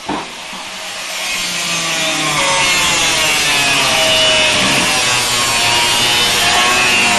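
Power saw cutting through the sheet-steel body of a VW Type 2 van: a click at the start, then a harsh, steady cutting noise that grows louder about two seconds in, with a wavering whine over it.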